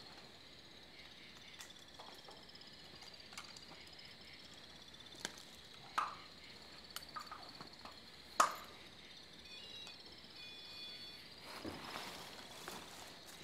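Night-time chorus of insects: a steady high-pitched pulsing trill. A few sharp clicks and knocks break in, the loudest about eight seconds in.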